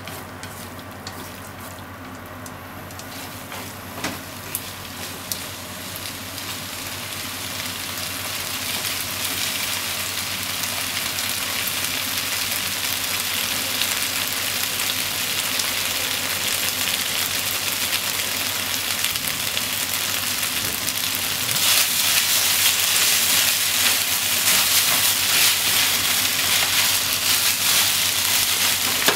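Potatoes, shimeji mushrooms and minced meat sizzling in a nonstick frying pan as they are stir-fried and turned with chopsticks. The sizzle builds steadily and grows louder again about three-quarters of the way through. There are a couple of light taps early on.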